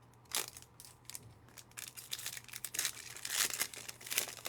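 Trading-card pack wrappers being torn open and crinkled, in several short rustling bursts, the loudest a little past the middle, over a faint steady low hum.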